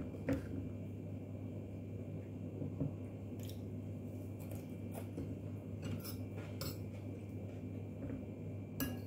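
A handful of scattered light clinks of a metal spoon and fork against ceramic plates and bowls while eating, over a steady low hum.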